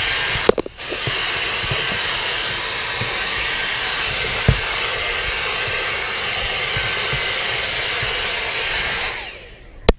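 Dyson cordless handheld vacuum running steadily with a high-pitched whine, briefly cutting out about half a second in. It is switched off near the end and its motor winds down, followed by a sharp click.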